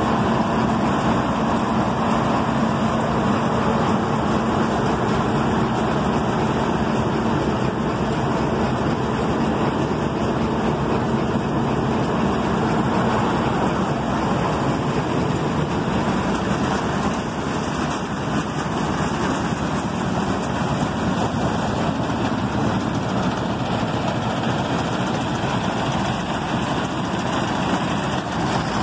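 John Deere 1170 combine harvester's diesel engine idling steadily, with a low hum that is strongest in the first half and fades about halfway through.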